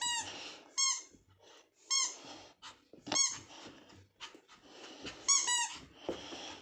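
Squeaky dog toy squeezed by hand, giving about five short, high squeaks at uneven intervals, the last two in quick succession near the end.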